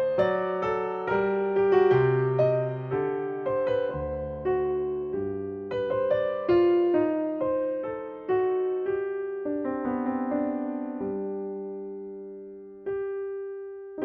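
Background piano music: a slow melody of single struck notes and chords, each note fading away, with a long held chord dying out before a new chord near the end.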